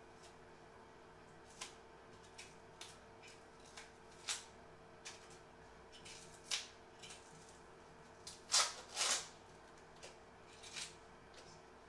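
Dry, papery onion skin crackling as it is pried and peeled off the onion with a small knife, in short irregular crackles; the loudest two come close together about three-quarters of the way through. A faint steady hum runs underneath.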